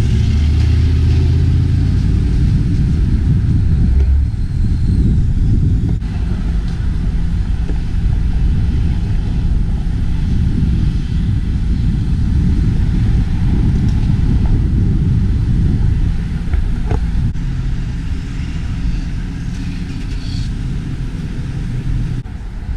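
Street traffic: a steady low rumble of passing vehicles, easing a little near the end.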